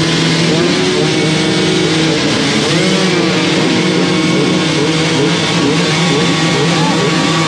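A pack of enduro dirt bikes running together, several engines idling at once with repeated short rev blips rising and falling over the steady drone.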